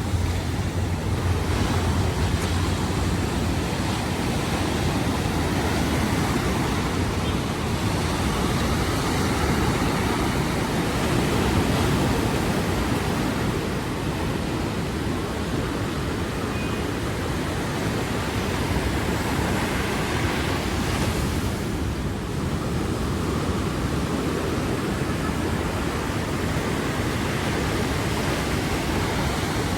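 Sea surf washing onto the beach: a steady rush of waves that swells and eases slightly.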